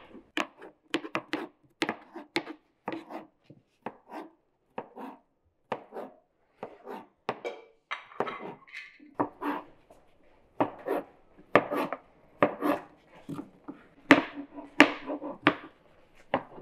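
Kitchen knife chopping vegetables on a cutting board, in irregular strokes about one or two a second, with a short pause partway through.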